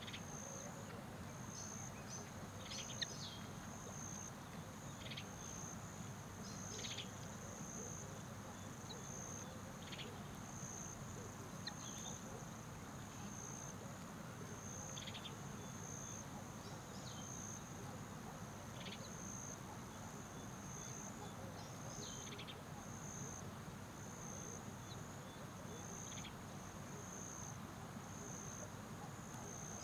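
A faint, high chorus of chirping insects, pulsing steadily, with short higher chirps every second or two, over a low steady hum.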